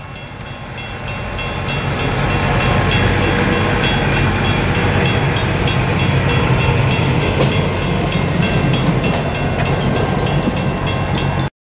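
Hi-rail track inspection truck running on the rails close by: a low engine drone under a rapid, regular clicking of its wheels on the track. The sound grows louder over the first few seconds, then cuts off suddenly near the end.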